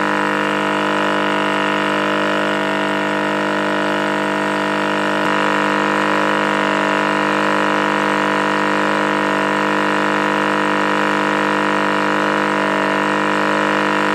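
An engine idling steadily at a constant speed, a dense set of unchanging tones with no rise or fall.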